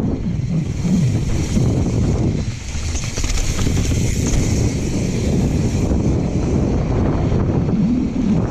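Wind buffeting the microphone of a bike-mounted action camera on a fast mountain-bike descent, a steady low rumble mixed with tyres rolling over dirt and gravel. The hiss swells in the middle.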